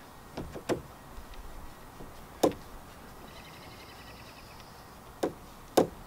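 Sharp clicks and taps from a chrome grab handle and the RV screen door it is screwed to, while its last two screws are put in by hand. The loudest tap comes about two and a half seconds in, and two more come near the end.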